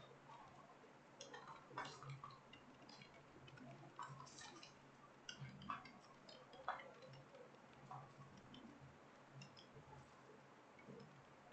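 Faint, irregular clicking of keys on a computer keyboard being typed on, with uneven gaps between keystrokes.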